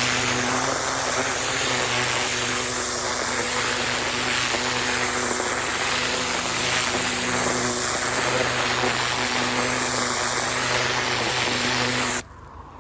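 Pressure washer running with its water jet spraying from an oscillating tip: a steady motor drone under loud hiss, with a sweeping pulse about every two seconds as the tip swings. It cuts off suddenly near the end.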